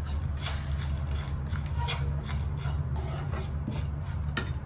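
Stainless steel spoon scraping and stirring crumbly jaggery powder around a nonstick frying pan, a run of short rasping strokes. A steady low hum runs underneath.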